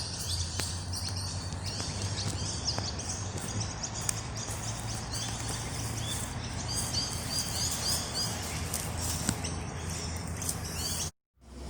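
Outdoor ambience: many small birds chirping on and off throughout, over a steady low rumble.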